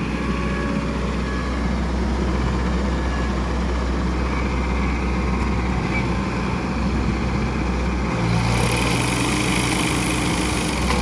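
Engine of an olive-harvest machine running steadily, with more hiss joining in about eight seconds in.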